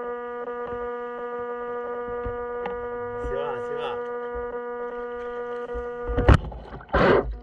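Steady electrical hum with a stack of even overtones from the armed electric drive of a 6S RC speedboat (Leopard 4074 brushless motor on a Flycolor 150 A ESC). About six seconds in it cuts off and two loud rushing bursts follow as the motor is blipped.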